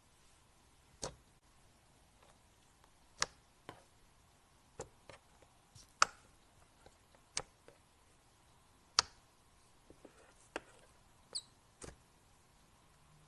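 Slime being handled: about a dozen sharp clicks and pops at irregular intervals.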